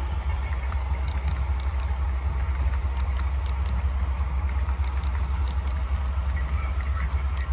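HO scale model train running along the layout track: a steady low rumble with scattered light clicks.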